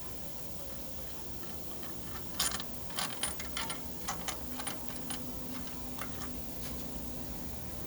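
Small metal parts and tools clinking and clicking against each other, about a dozen light, irregular metallic clicks with a short ring, bunched in the middle few seconds.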